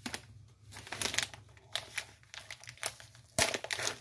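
Plastic paydirt bag crinkling as it is handled and opened, with one sharp snap about three and a half seconds in.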